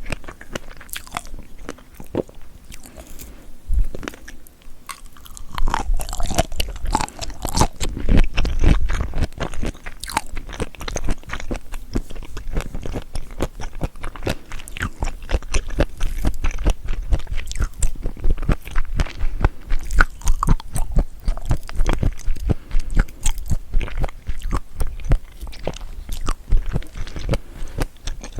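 Close-miked chewing and biting of seafood: a dense run of wet crunches and clicks, quieter for the first few seconds, then louder and steadier.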